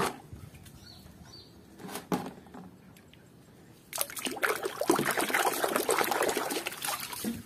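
Water splashing and sloshing in a plastic tub as a hand scrubs a muddy plastic toy animal under water, starting about four seconds in after a short knock.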